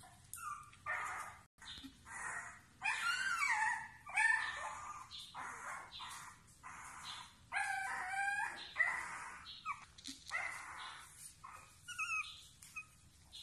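Young beagle puppies whining and yelping: a string of short high calls that bend up and down in pitch, loudest around three to four seconds in and again around eight seconds.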